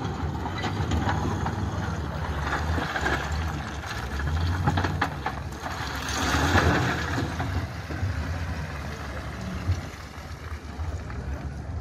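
Diesel engine of an earthmoving machine running, a steady low rumble with rising and falling noise over it that swells louder about six and a half seconds in.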